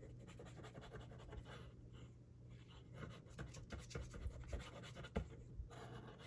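Faint rustling, sliding and light tapping of paper and cardstock scraps being handled and laid out, over a steady low hum.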